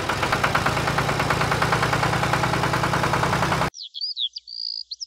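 Toy tractor running as it pulls a plough through sand, its motor sounding a fast, even mechanical beat. The sound cuts off suddenly about three-quarters of the way in, and light electronic music of chirpy gliding tones follows.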